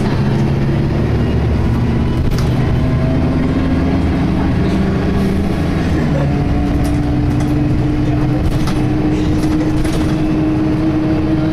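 Optare Tempo single-deck bus heard from inside the saloon while under way: engine and drivetrain running with a whine that climbs in pitch and then holds steady from about halfway, plus light rattling clicks. The whine is the Voith-gearbox-like sound that puzzles the uploader, since this bus has an Allison transmission.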